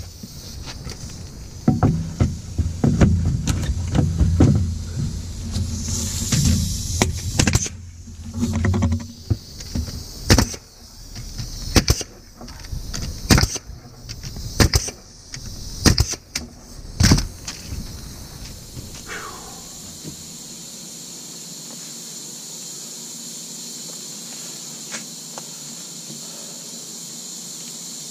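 Ridgid pneumatic nailer firing nails into 2x4 roof braces: a run of sharp shots about a second apart, the first ones over a low steady rumble. In the last third a steady high hiss of compressed air takes over.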